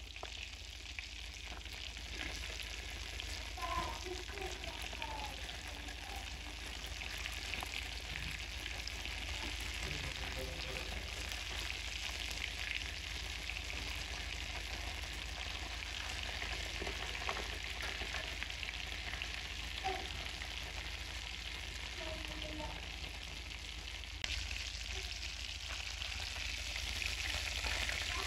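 Potato patties deep-frying in hot oil in a steel pan, a steady bubbling sizzle, with a few brief clinks of the steel tongs used to turn them.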